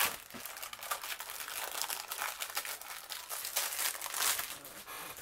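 Clear plastic packaging sleeve crinkling and rustling as hands pull a rolled diamond painting canvas out of it, in a dense irregular crackle.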